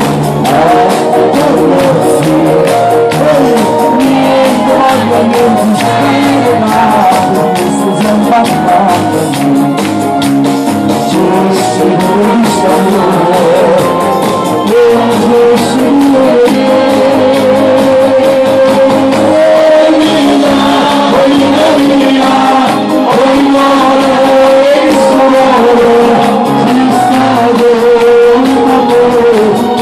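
A male singer singing live into a microphone over amplified backing music through a PA system, with no break.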